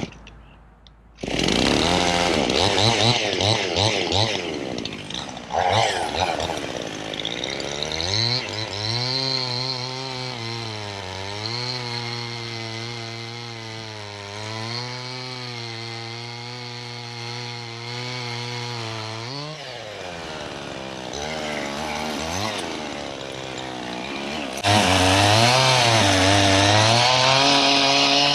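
Husqvarna 55 two-stroke chainsaw cutting a small white pine. It opens up loud about a second in, runs at a lower, wavering speed through the middle, and goes back to full throttle near the end.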